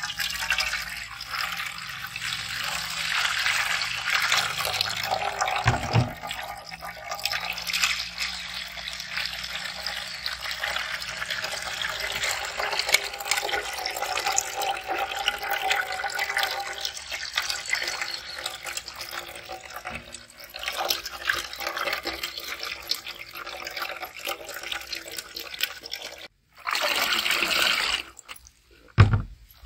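Blended watermelon juice poured in a steady stream into a large aluminium pot of foamy juice: continuous splashing. The pour stops briefly near the end, then comes again for a moment.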